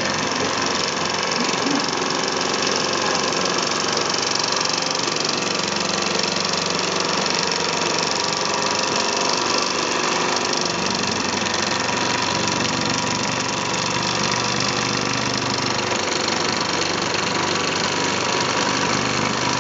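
Mamod model steam engine running, its flywheel spinning fast: a steady, rapid chuffing hiss of exhausting steam with light mechanical clatter from the oscillating cylinder.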